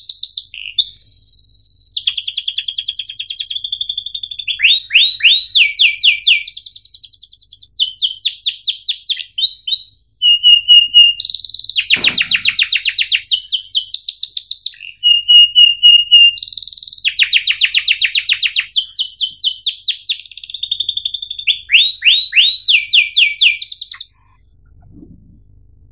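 Domestic canary singing a long, fast song of rapid trills and rolls, broken by a few held whistled notes; the song stops about two seconds before the end.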